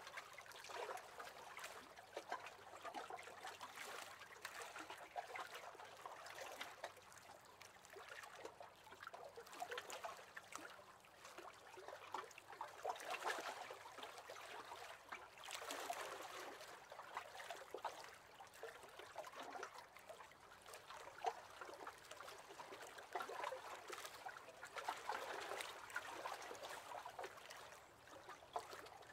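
Small waves lapping against the hull of a wooden rowing boat, a soft trickling and splashing that swells and eases every few seconds.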